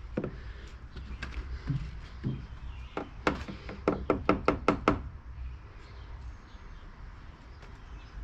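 A few scattered sharp knocks, then a quick run of about eight sharp knocks, some four to five a second, that stops about two thirds of the way through.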